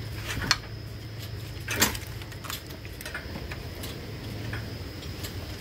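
Engine hoist being pumped to lift an engine out: light metallic clicks and clanks about once a second, with a sharper clunk about two seconds in, over a steady low hum.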